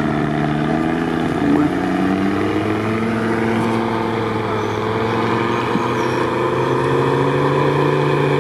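Lada Niva's engine running hard and steady under load as the off-road Niva pushes through deep, sticky bog mud. Its pitch steps up once, about a second and a half in, then holds.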